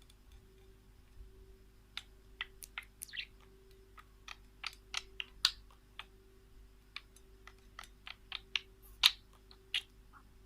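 Birds giving short, sharp chirps, irregular and quick, beginning about two seconds in.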